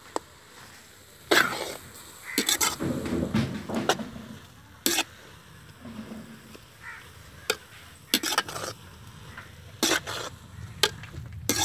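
A ladle stirring grated beetroot in a large metal pot, scraping and knocking against the pot's sides in short, irregular clatters.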